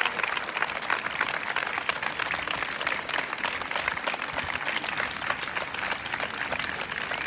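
Large crowd applauding: a steady patter of many hands clapping.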